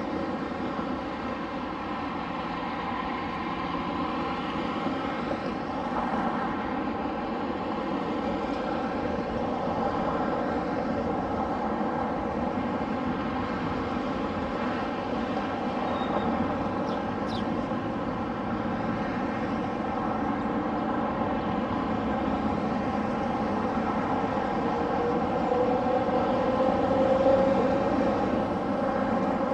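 An engine running steadily, with a set of steady tones, its pitch rising a little near the end.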